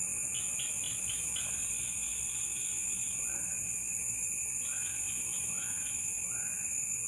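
Night insect chorus: crickets chirping in quick pulsed trills over a steady high-pitched insect drone. A lower, rise-and-fall call repeats every second or so in the second half.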